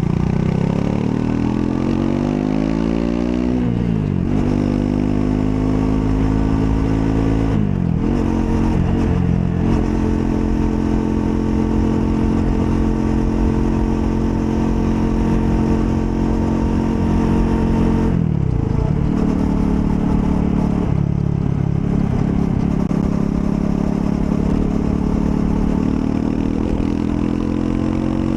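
Triumph Scrambler 400 X's single-cylinder engine under way. It revs up, and its pitch drops sharply at about four and eight seconds as it shifts up through the gears. It then holds a steady cruising note, dips briefly once more later on, and picks up again near the end.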